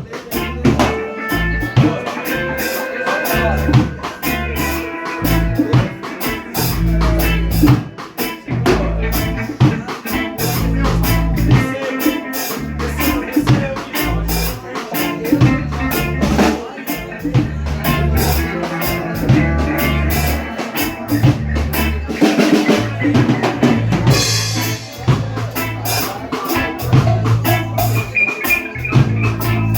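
Live rock band playing during a soundcheck: a drum kit with kick, snare and rimshots keeping a steady beat over low bass notes, with a brief cymbal wash partway through.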